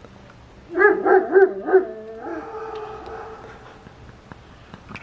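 A dog barking in a quick string of short yips about a second in, then giving one long drawn-out whine or howl that fades away. A few sharp clicks come near the end.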